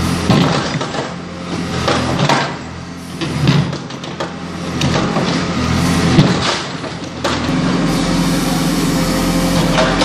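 JCB 4CX backhoe loader's diesel engine working hard while its backhoe bucket breaks up and scrapes asphalt and paving slabs, with repeated knocks and scraping of broken pieces. About seven and a half seconds in, the knocking mostly stops and a steadier, deeper engine hum remains.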